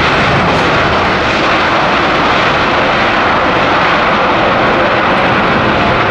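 Boeing 787-9 Dreamliner's jet engines at takeoff thrust during the takeoff roll: a loud, steady rushing engine noise.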